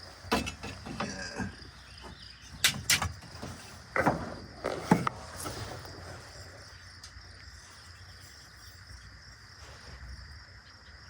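Crickets chirring steadily in the background, with several sharp knocks and clatters in the first half.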